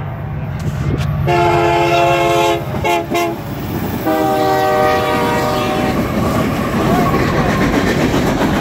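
Union Pacific diesel locomotive's multi-chime air horn blowing a long, a short and a long blast, the pattern that ends a grade-crossing signal; the last blast sounds lower as the locomotive goes by at speed. The heavy rumble and wheel clatter of the locomotives and freight cars rolling past continue under the horn and take over once it stops.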